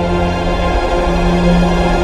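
Tense film score music: held tones over a low drone, slowly building.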